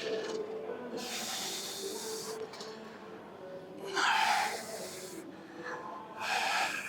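Three forceful, hissing breaths from a weightlifter working through heavy reps, a couple of seconds apart: about a second in, about four seconds in, and near the end.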